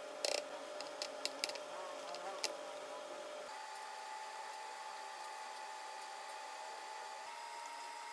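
Small electric mixer motor whining steadily, its pitch stepping up twice, with a few light clicks in the first couple of seconds.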